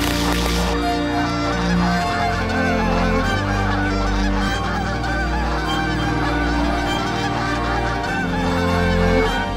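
A large flock of Canada geese honking in flight, with many calls overlapping in a continuous clamour that thickens about a second in.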